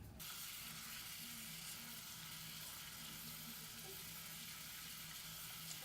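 A steady hiss like static, starting just after the start, with a faint low hum under it.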